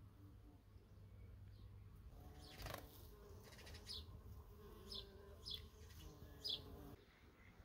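Faint garden ambience: a buzzing insect and a few short, high bird chirps, the buzz cutting off about a second before the end.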